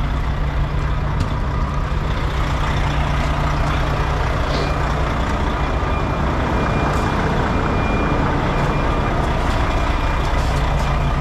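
Diesel truck engine idling steadily close by, a continuous low drone.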